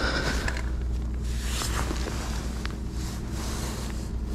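Steady low rumble of wind on the microphone, with a few faint clicks.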